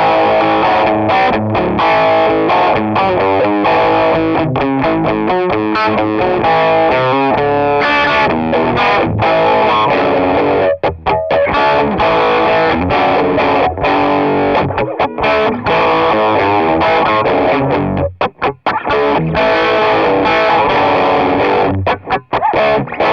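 Electric guitar played with a pick on the bridge pickup through a StewMac Ghost Drive, a Klon-type overdrive pedal, with the overdrive cranked up: distorted riffs and chords with a few brief pauses.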